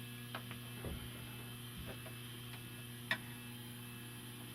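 Steady electrical hum with a few faint taps and one sharper click about three seconds in.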